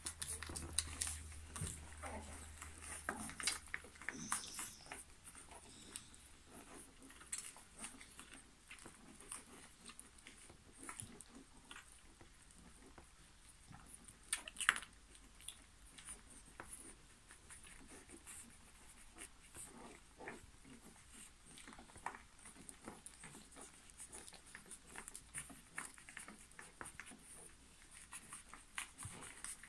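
Litter of newborn puppies suckling at their mother: faint, irregular wet smacking and clicking.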